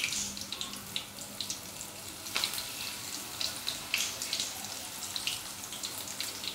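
Corn pakoda batter balls deep-frying in hot refined oil in a kadhai: a steady sizzle with scattered crackling pops.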